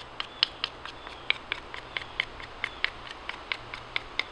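Knife carving a wooden tent stake: a quick, uneven run of short, crisp cutting strokes, about four or five a second, as the blade bites and shaves the wood.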